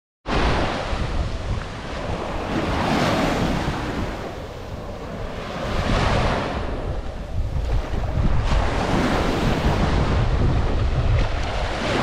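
Small ocean waves washing up onto the sand at the shoreline, swelling and fading every few seconds, with wind rumbling on the microphone.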